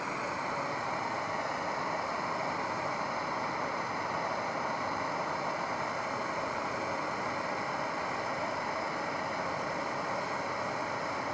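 Handheld gas blowtorch burning steadily, its flame playing on a clamped test tube of molten potassium chlorate; a constant, unbroken hiss.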